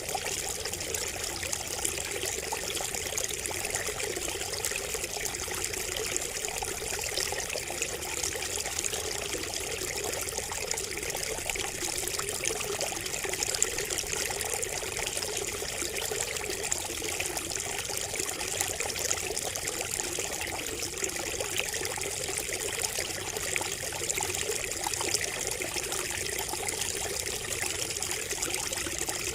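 Water trickling and splashing steadily from a bamboo spout, an unbroken babble with no let-up.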